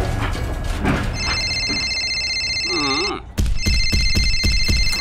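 A telephone ringtone: an electronic ring of several steady high tones, sounding twice for about two seconds each with a short break between.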